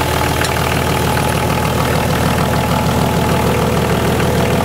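BMW Marine D190 marine diesel engine running steadily with a rapid, even beat. The owner blames its poor running on a leaking shaft seal at the front of the injection pump, which lets air into the fuel.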